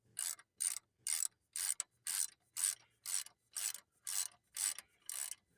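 Hand ratchet wrench clicking in steady back-and-forth strokes, about two a second, as the new alternator's mounting bolts are run in.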